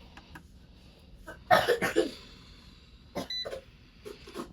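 A short electronic beep from an air fryer's control panel about three seconds in, as its settings are keyed in. Earlier, about a second and a half in, come two short sharp noises, the loudest sounds here.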